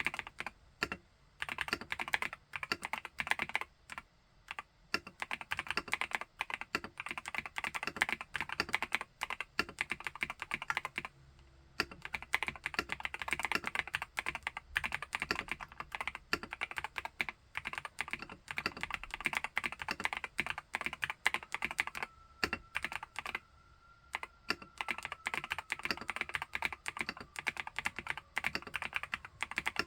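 Typing on an Epomaker Brick 87 mechanical keyboard with Epomaker Wisteria linear switches: a fast, continuous run of keystrokes, broken by short pauses three times.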